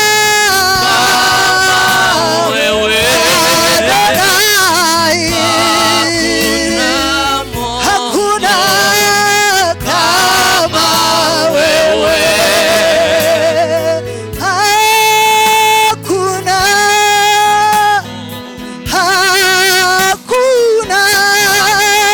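Worship music: a voice singing long held notes with vibrato over instrumental accompaniment and a steady bass.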